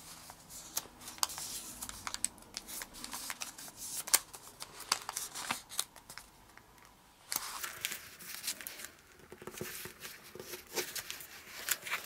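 A sheet of origami paper being folded and creased flat by hand: crisp rustling and small crackles of the paper, with a brief lull about halfway through.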